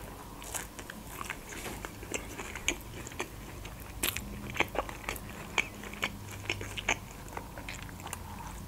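Close-miked chewing of a toasted hot sandwich: irregular crisp crunches and mouth clicks, loudest about three to four seconds in.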